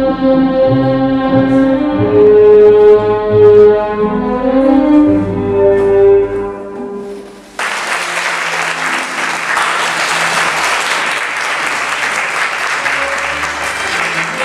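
Music with long held melodic notes plays and fades out about halfway through. An audience then bursts into steady applause, which lasts to the end.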